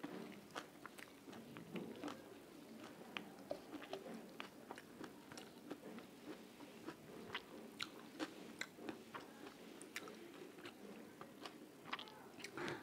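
Close-miked eating sounds: a person chewing a mouthful of rice and cooked wild ferns, with many small wet mouth clicks and smacks, some of them crunchy.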